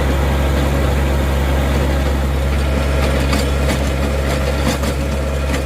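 John Deere 1023E compact tractor's three-cylinder diesel engine running steadily while tilling a garden, with a few sharp clicks in the second half.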